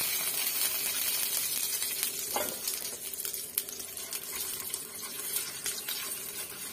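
Cumin seeds, a bay leaf, a dry red chilli and asafoetida sizzling in a little hot mustard oil in a frying pan, with a steel spoon stirring them and clicking and scraping against the pan. The sizzle is strongest in the first second or two.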